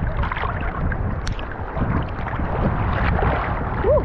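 Shallow sea water sloshing and splashing close around a camera held at the waterline, a dense irregular wash of small splashes over a low rumble, with one sharp click about a second in.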